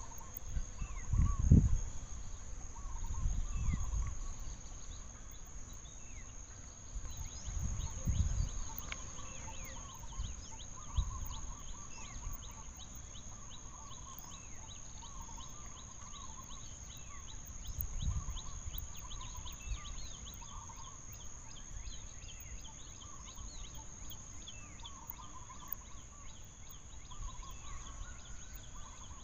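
Outdoor ambience of a steady high insect drone, with many short chirping calls and a run of warbling, gobbling-like animal calls throughout. Several low rumbling bumps stand out, the loudest about a second and a half in, with others near 4, 8 and 18 seconds.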